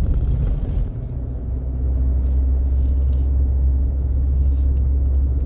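A vehicle driving along a road: a steady, loud low rumble of engine and road noise with no change in pace.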